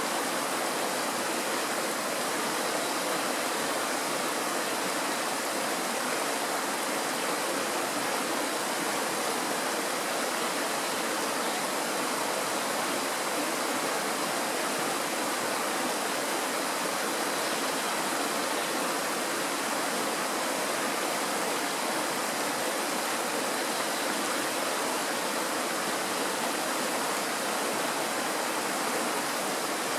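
Kirowa Woda, a shallow Tatra mountain stream, running over stones and small rapids: a constant, even rush of water with no breaks.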